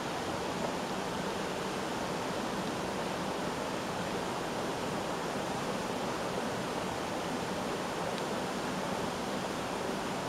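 Steady, even rush of flowing water, with no separate splashes or drops.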